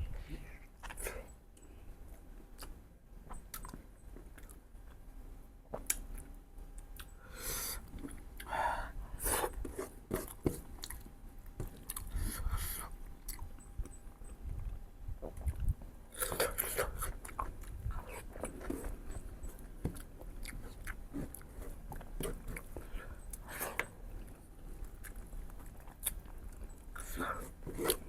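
Close-miked chewing and biting while eating mutton ribs: an irregular run of sharp clicks and short smacks.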